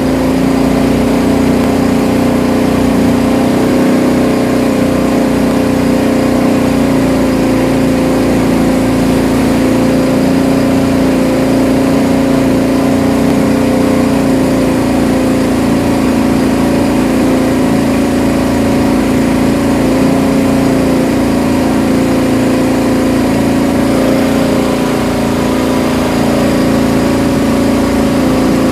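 Boat engine running steadily at constant speed, a loud even drone with no change in pitch.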